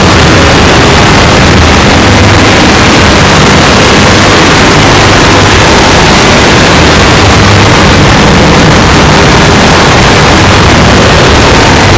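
A sneeze recording pushed through stacked audio effects until it is a loud, unbroken wall of distorted, clipped noise across all pitches, with no sneeze or voice left recognisable.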